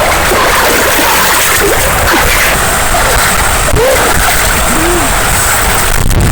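River water splashing and rushing, a steady loud wash of sound.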